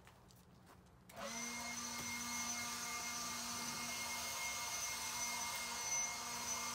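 Handheld leaf blower switched on about a second in, then running at a steady speed with a constant whine and rush of air.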